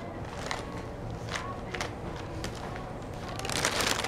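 Thin plastic shopping bag rustling and crinkling as a cat pushes into it: a few short crinkles, then a longer, louder rustle near the end.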